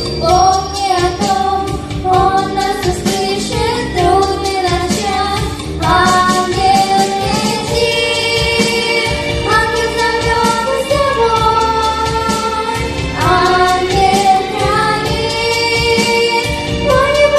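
Background music: a song with a female singing voice, long held notes over a steady beat.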